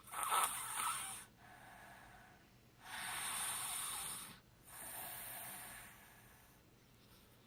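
Snoring: four noisy breaths in and out, the loudest at the very start and a long one about three seconds in.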